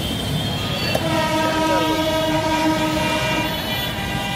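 A horn blown in one long steady blast of about two and a half seconds, starting about a second in, over a constant background din of traffic and market noise.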